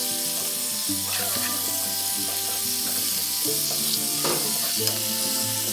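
Food frying in a pan with a steady sizzle, over background music.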